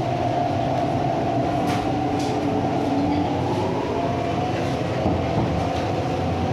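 MTR East Rail Line R-Train, a Hyundai Rotem electric multiple unit, running along the line as heard from inside the carriage: a steady rumble of wheels on rail with a wavering motor hum and a few light clicks.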